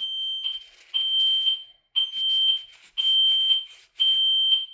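Vivint home alarm system beeping for a water-sensor (auxiliary) alarm: one high, single-pitched beep about once a second, each lasting a little over half a second. For this kind of alarm it only beeps rather than sounding a siren.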